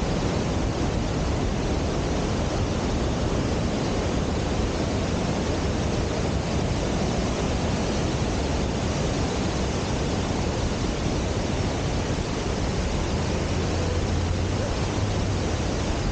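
Steady wind rush on the microphone of a camera on a moving bicycle.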